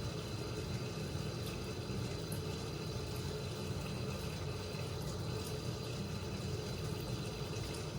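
Sink faucet running steadily, water pouring into the basin.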